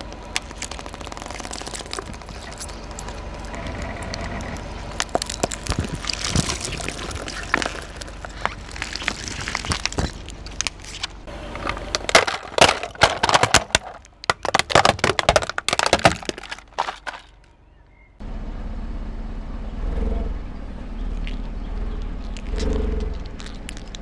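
Car tyre rolling over and crushing plastic objects: soda bottles packed with water beads, then plastic toy trucks. It gives a long stretch of crackling, scraping and sharp plastic cracks, with the loudest, densest run of snapping cracks in the middle. After an abrupt cut about three-quarters of the way in, only a low rumble with wind noise on the microphone remains.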